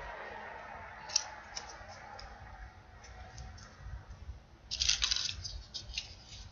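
Thick paper origami units rustling and clicking as they are pushed into the pockets of a 3D origami model, with a few light clicks and a louder crinkly rustle about five seconds in.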